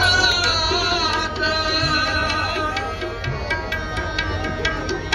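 Sikh kirtan: a voice singing a devotional hymn to a steady tabla accompaniment.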